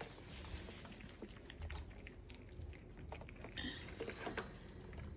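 Faint scattered clicking and tapping of puppies at ice cubes in a pan, with a brief high squeak about three and a half seconds in.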